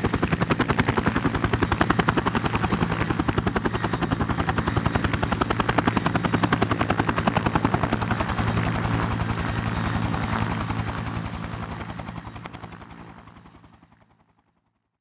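Bell 212 twin-turbine helicopter running, its two-blade main rotor beating in a fast, even rhythm over a steady high turbine whine. The sound dies away over the last few seconds to silence.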